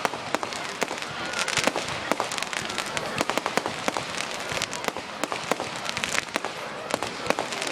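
Fireworks going off: a dense, irregular stream of sharp cracks and bangs, several a second.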